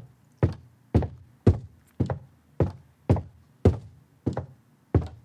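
Footstep sound-effect samples played back one after another, about two steps a second, nine sharp steps each with a short tail. Each step has been varied slightly by Steinberg's Randomizer plugin, so the repeated sample sounds a little different each time.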